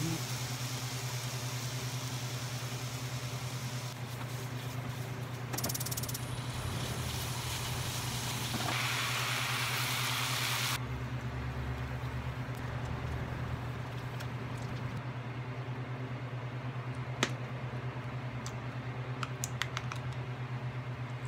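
Mushrooms and onions sizzling in a frying pan over a steady low hum. About nine seconds in, the sizzle turns louder and hissier as drained noodles go into the pan, then dies down abruptly about two seconds later, leaving the hum and a few light clicks.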